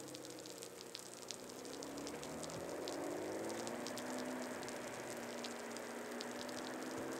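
Ferrari 599 GTB's V12 heard faintly at a distance, its pitch rising about two and a half seconds in and then holding steady as it pulls away, over a steady hiss with fine crackles of rain.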